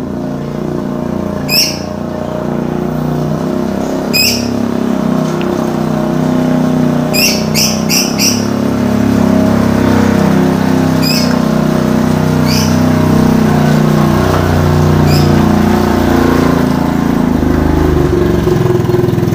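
Honda Beat scooter engine in a mini Jeep running steadily as the Jeep drives up, its hum growing louder as it approaches. Short bird chirps come now and then over it.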